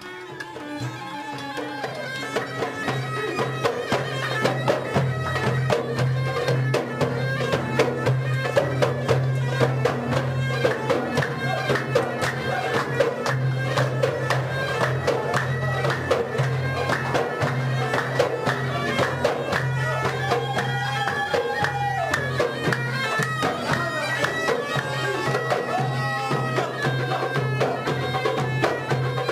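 Traditional folk music: a bagpipe melody playing over a steady drone, with a fast drum beat underneath.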